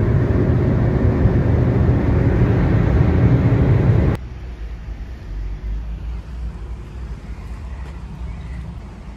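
Cabin noise inside an Alfa Romeo 147 driven at motorway speed, around 160 km/h: a loud, steady drone of engine and road noise. It cuts off abruptly about four seconds in, giving way to much quieter street noise with passing traffic.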